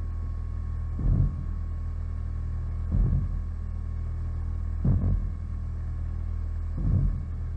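Steady low electronic hum with a dull, heartbeat-like throb repeating about every two seconds.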